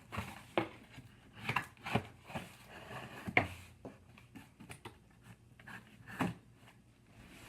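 A cardboard package being opened by hand: irregular scrapes, rustles and sharp knocks of cardboard and packing tape, the loudest about three and a half seconds in.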